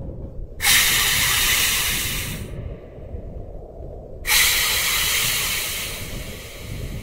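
Two loud hisses, each about two seconds long and starting abruptly, the second fading out, over a steady low rumble.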